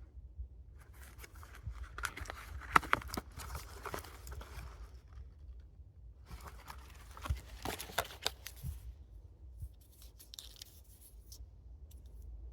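Rustling and crinkling handling noise with scattered sharp clicks, in two spells with a gap near the middle.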